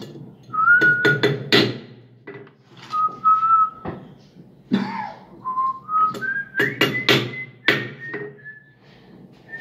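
Someone whistling a tune in held notes that step up in pitch through the middle, over sharp knocks of a nylon (Technyl) mallet striking a revolver: a quick run of blows about a second in and another cluster around seven seconds in.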